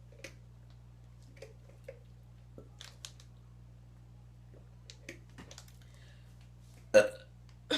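A few faint clicks and taps, then a short, loud burp about seven seconds in, during a burping challenge drinking soda and sports drink; a second burst starts right at the end and trails into breathing.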